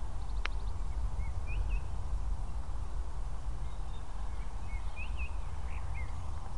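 Wind rumbling on the microphone in an open field, with small birds chirping in short calls throughout and a single sharp click about half a second in. The model's electric motors are not plainly heard.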